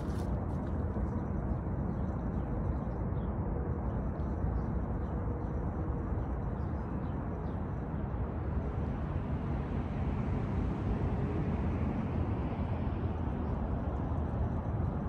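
Steady low rumble of outdoor background noise, heaviest in the bass, with no distinct events.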